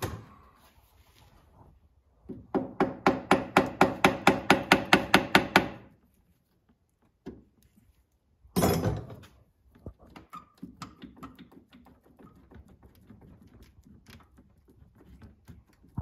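A rapid run of about eighteen ringing hammer taps on a metal engine part, about five a second, that stops abruptly. A single heavier knock follows, then light clicks of parts being handled.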